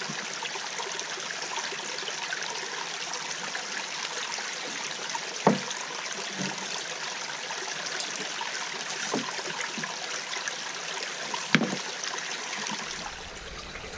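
Small woodland stream running steadily, with three sharp knocks from handling inside the wooden turbine housing, the loudest about five and a half seconds in and near the end.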